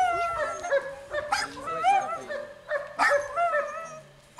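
Short high-pitched vocal cries with wavering pitch, three in a row about a second and a half apart.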